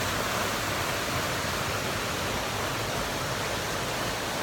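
Small waterfall pouring over rocks into a stream pool: a steady rush of water.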